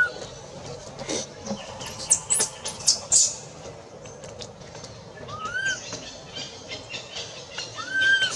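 A newborn long-tailed macaque giving thin, short whimpering coos that rise and then hold, a few seconds apart, the cry of a baby calling to its mother. Three sharp high-pitched chirps about two seconds in are the loudest sounds, over light rustling and clicking in dry leaves.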